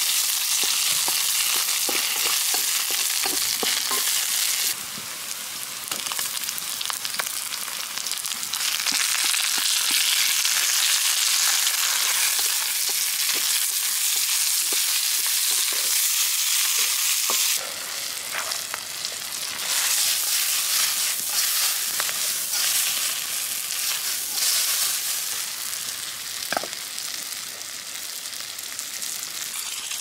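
Chopped onions, green chillies, curry leaves and tomatoes sizzling in hot oil in a wok, with a metal spatula clicking and scraping as it stirs. The sizzle drops and rises again a few times.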